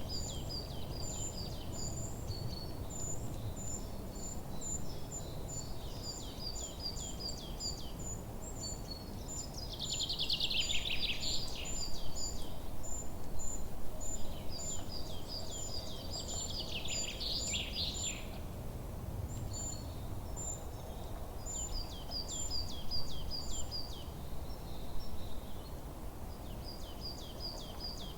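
Forest birdsong: a fast series of high, repeated chirps runs on and off, and two louder, busier songs break in about ten seconds in and again around seventeen seconds. A steady low rumble of outdoor background noise sits underneath.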